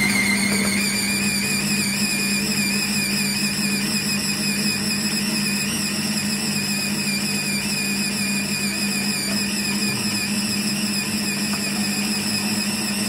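Masterpro kitchen robot's motor running steadily at speed 6, spinning its blade through muffin batter: a high whine over a low hum.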